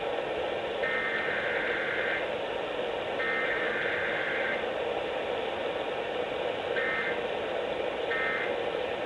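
Emergency Alert System SAME data bursts received over radio with steady static hiss. The last two header bursts come about a second apart, each about 1.3 s long. After a pause, two short end-of-message bursts about 1.3 s apart mark the end of the alert.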